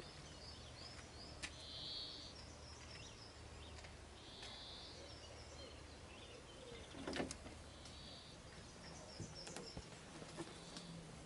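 Faint outdoor background with distant birds calling a few times, and occasional soft knocks and clicks, the loudest about seven seconds in.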